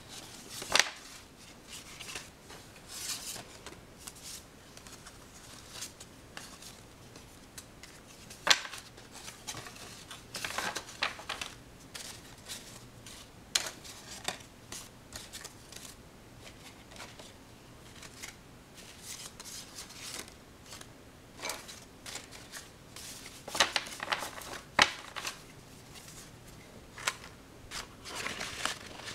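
Irregular sharp clicks and short rustling scrapes, spaced a second to a few seconds apart, with a few closer clusters.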